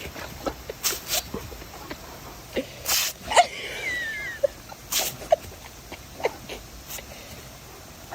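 An animal sneezing several times in short, sharp bursts, with a brief high squeaky cry that falls in pitch about three and a half seconds in.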